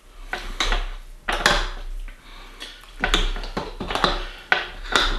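Spatula stirring meatballs in sauce in a Nesco roaster oven's cookwell, knocking and scraping against the pot in a quick, irregular series of clatters as it is worked along the bottom.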